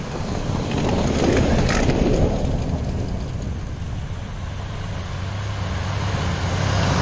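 Two Jeep Wranglers driving slowly through deep snow: the red 2012 Wrangler JK passes close about a second in, its engine running under a low hum and its tyres churning snow. Then the white 1997 Wrangler TJ's engine grows louder as it approaches near the end.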